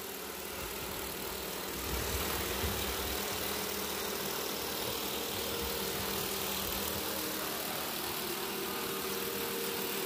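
Robot vacuum cleaner running on a tile floor: a steady whirring hum of its suction motor and brushes, a little louder from about two seconds in.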